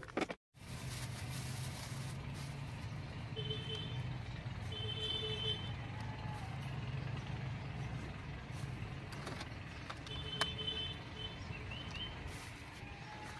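A steady low motor hum, with a few short high tones a little way in and again near the end.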